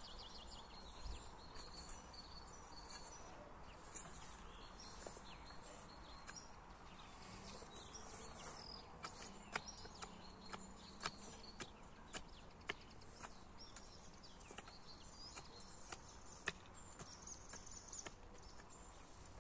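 Faint outdoor background with small high chirps, and a scatter of sharp light clicks and taps, most of them in the middle of the stretch.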